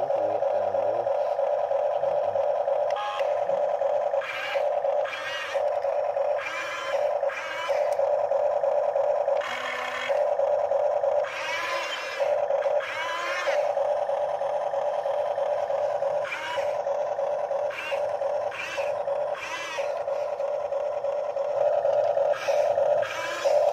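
Huina radio-controlled excavator running: a steady buzzing hum, broken about fourteen times by short whines of its electric motors, some rising or falling in pitch, as the arm and tracks move.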